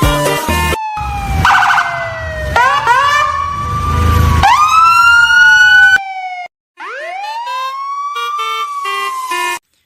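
Wailing siren, its pitch rising and falling in slow sweeps several times over a music bed. It breaks off briefly about two-thirds of the way through and cuts off suddenly near the end.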